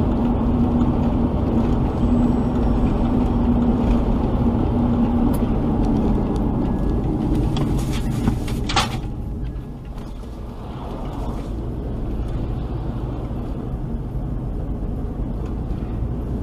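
Engine and road noise of a vehicle driving at highway speed: a steady low drone with a low hum. The noise eases as the vehicle slows down, and a brief sharp sound comes about nine seconds in.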